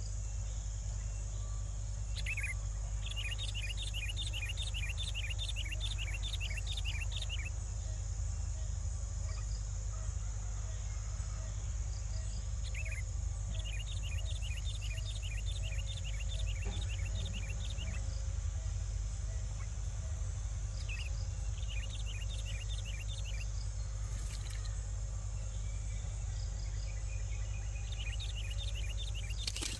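Steady high-pitched drone of insects, broken by four spells of rapid chirping, each lasting a few seconds, over a low steady hum.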